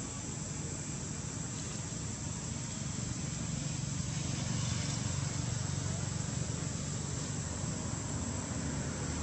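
Steady outdoor background noise: a low rumble with a thin, steady high-pitched drone over it, and no distinct calls or knocks.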